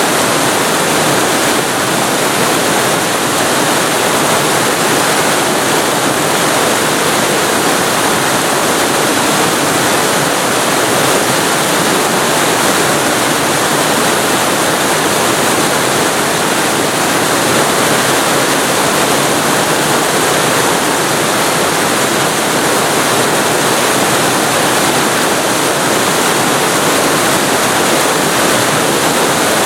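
Waterfall recorded very close to the falling water: a loud, steady rush with no change.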